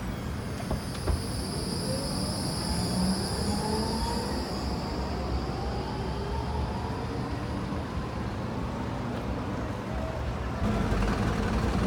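Electric tram running in the street: a high, steady squeal for the first few seconds and faint rising whines over a low rumble. A louder low hum comes in near the end.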